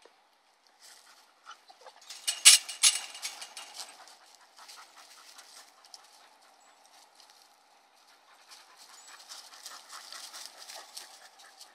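Two dogs panting and scuffling as they play rough, with a louder cluster of sharp noises about two and a half seconds in.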